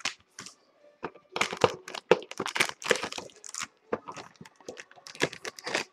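Trading card packaging crinkling and tapping as hands open and handle a box of football card packs: a quick, irregular run of short crackles and clicks.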